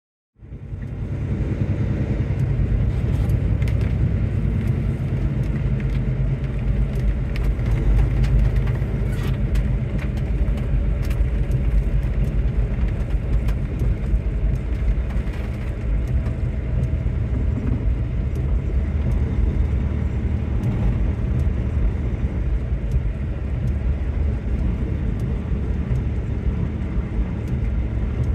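Road noise inside a car cabin while driving on a wet road: a steady low rumble from the tyres and engine, with scattered faint ticks.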